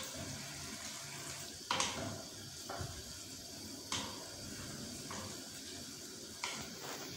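Beef and sauce simmering in a frying pan covered with a plate over a gas flame: a steady bubbling hiss, with five sharp clicks a second or so apart.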